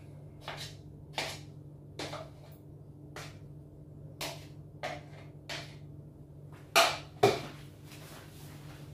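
Soft butter being spooned from a plastic jug into a baking dish of stuffing: light taps and scrapes every half second to a second, then two louder knocks half a second apart about three-quarters of the way through.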